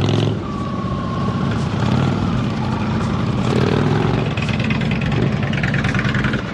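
Motorcycle engine running steadily at low speed, near idle, during slow-speed riding.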